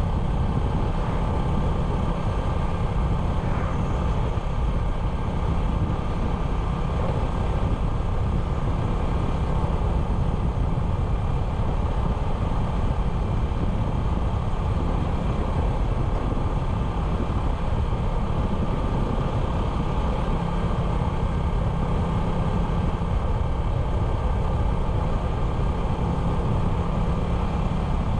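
Small 97cc motorcycle engine running at a steady, even speed while being ridden, over a dense low rumble.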